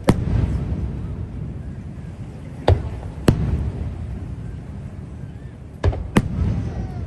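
Aerial firework shells bursting: five sharp bangs, coming roughly in pairs about half a second apart, each followed by a low rolling rumble.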